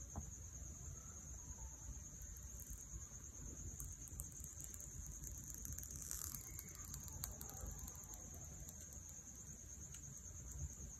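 Near-quiet, with a faint steady high-pitched whine throughout. About halfway through come a few faint ticks and scrapes from fingers working a dust-removal sticker under the edge of a tempered-glass phone screen protector.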